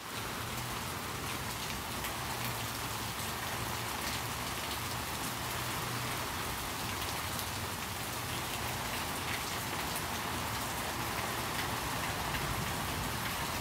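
Steady rain falling, an even hiss with scattered individual drops ticking through it.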